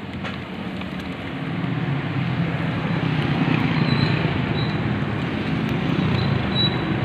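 Road traffic close by: a motor vehicle's engine rumble grows louder from about two seconds in. Under it is the hiss of sempol skewers frying in very hot oil.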